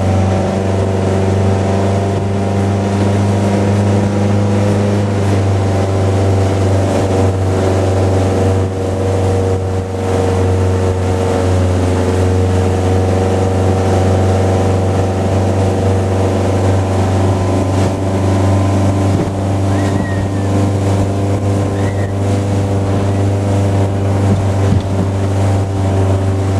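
Speedboat engine running steadily at speed while towing, a constant drone with the rush of water from its wake.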